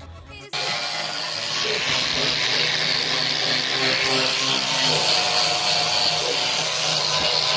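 A power tool starts suddenly about half a second in and then runs steadily, with a hissing, whirring sound, likely while working on a patched car bonnet.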